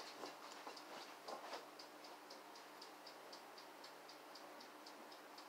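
Faint, rapid mechanical ticking, about four ticks a second, over a low steady hum. A few soft knocks come in the first second and a half.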